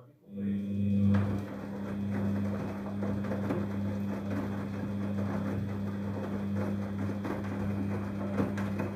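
Daewoo DWD-FT1013 washing machine running in its rinse cycle: a steady machine hum with a noisy rush over it, starting just after the beginning and cutting off near the end.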